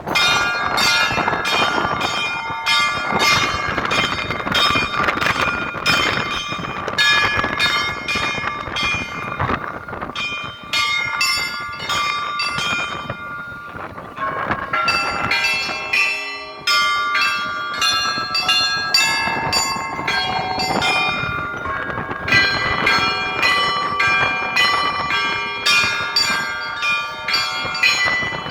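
Orthodox church bells rung in a festive Easter peal: small high bells struck rapidly over the lower strokes of larger bells, their tones ringing on into one another. The ringing thins briefly about halfway through, then the full peal comes back with a strong stroke.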